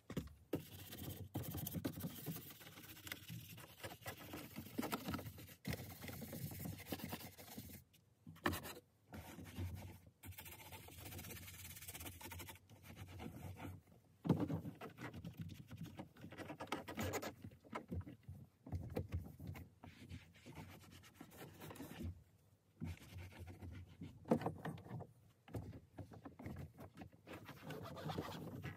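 Microfibre towel wiping and rubbing the steering wheel and plastic dashboard: faint, irregular scuffing strokes with short pauses and a few louder bumps.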